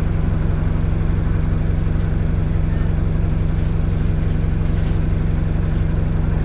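Single-deck bus's diesel engine running steadily, with a constant low hum and throb heard from inside the passenger saloon.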